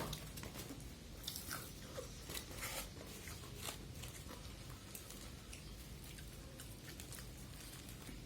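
Close-up eating of crispy ayam geprek fried chicken: crunchy bites and chewing, with a run of crisp crackles in the first few seconds that thins out later.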